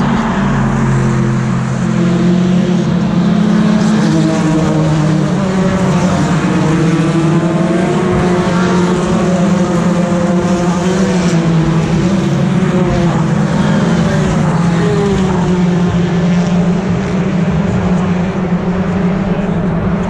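BTCC touring cars' 2-litre turbocharged four-cylinder engines at racing speed as the field streams past one car after another, several engine notes overlapping and shifting in pitch.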